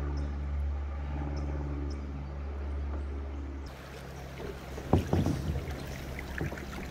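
Sustained, steady musical tones for the first half. Then they give way to water rippling around a plastic kayak in a shallow riffle, with a sharp splash of a paddle stroke about five seconds in.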